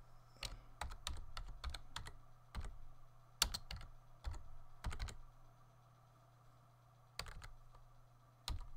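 Typing on a computer keyboard: irregular runs of keystrokes for the first five seconds or so, a pause of about two seconds, then a few more keystrokes near the end, over a steady low hum.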